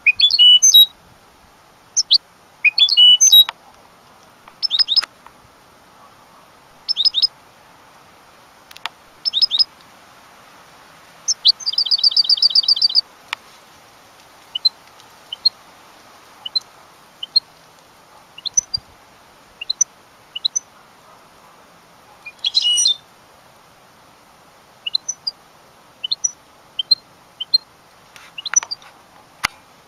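European goldfinch singing in broken bouts of quick twittering chirps, with a fast trill of rapid repeated notes about twelve seconds in and scattered single high notes between the bouts.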